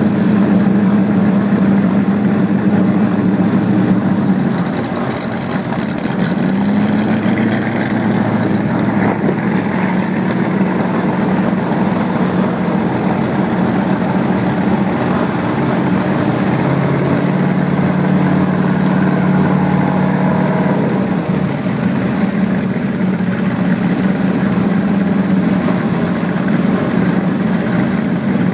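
Engine running on test with a prototype drive and clutch, its speed dipping and coming back up about five seconds in, then running slower for a few seconds past the middle before picking up again.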